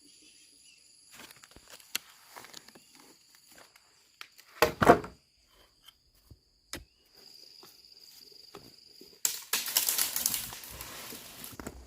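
Scattered crunching, rustling and knocks over a faint steady high whine, with one loud thump about five seconds in and a burst of dense rustling near the end.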